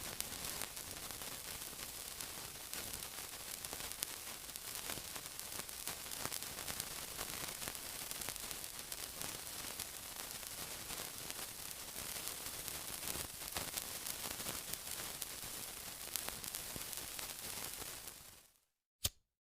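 Steady sizzling: an even hiss dotted with fine crackles. It fades out near the end, and one sharp click follows in the silence.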